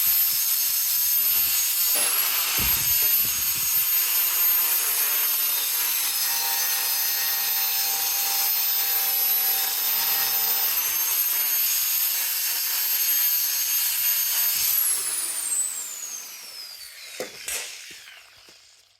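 Angle grinder working a small steel plate, a steady hiss under a high-pitched whine; about fifteen seconds in it is released and the whine falls in pitch as the disc spins down.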